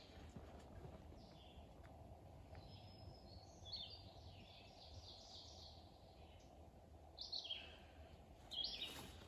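Quiet forest ambience with a small bird chirping: a run of short, high repeated notes a few seconds in, then a couple more calls near the end.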